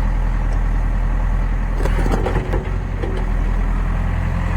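Excavator's diesel engine running steadily, with a few short knocks about two seconds in.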